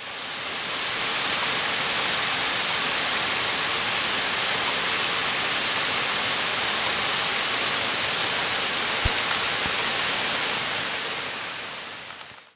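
Steady heavy rain, an even hiss, fading in over about the first second and fading out near the end.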